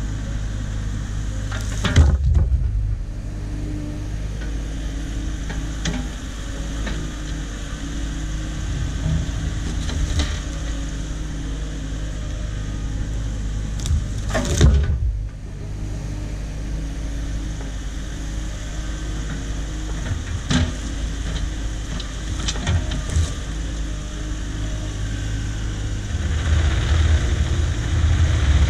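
An engine running steadily, with two loud knocks about two seconds and about fourteen seconds in, and a few lighter clunks between them. The engine gets louder near the end.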